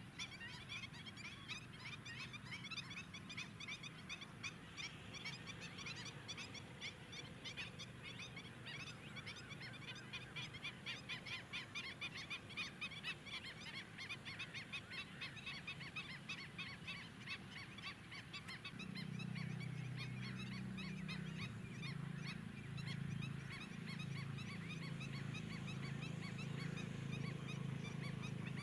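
A flock of greater flamingos calling, a dense goose-like honking and gabbling of many overlapping short calls. About two-thirds of the way through, a louder low, steady hum joins in.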